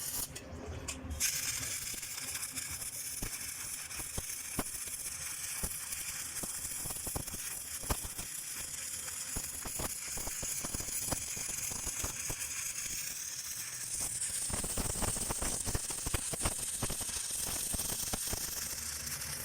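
Electric arc welding on steel: the steady crackling sizzle of the arc as a fillet weld is run between an I-beam and its base plate, starting about a second in.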